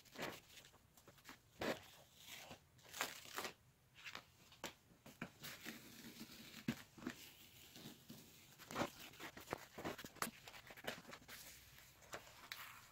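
Paper masking-tape shell being sliced with a snap-off utility knife and peeled away from a foam seat, giving irregular crackling and tearing of the tape.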